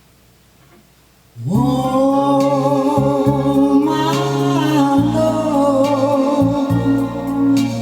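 Music with a singing voice played back from a cassette on a Pioneer CT-F750 tape deck, starting abruptly about a second and a half in after a quiet gap between songs.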